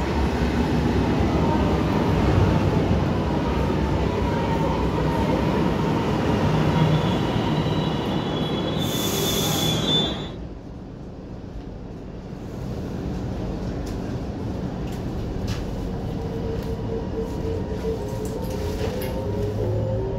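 ATM 900 series "Meneghino" metro train braking into a station: traction motor tones fall slowly as it slows, wheels squeal, and a short hiss of air comes as it stops about halfway through. After a quieter stretch, the motors whine rising in pitch near the end as the train pulls away.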